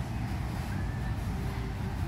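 Steady low rumble of indoor store background noise, with no distinct events.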